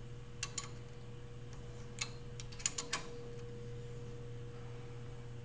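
A few sharp metallic clicks from a wrench turning the clamp screw of a speeder head's collar band as it is tightened, scattered irregularly through the first three seconds, over a steady low electrical hum.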